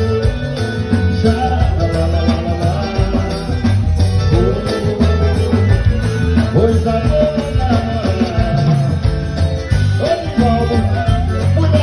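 Forró band music played live, with a steady low beat under a wavering melody.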